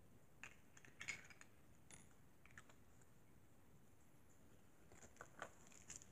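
Near silence with faint scattered clicks and rustles of small plastic toys and packaging being handled, a cluster about a second in and another near the end.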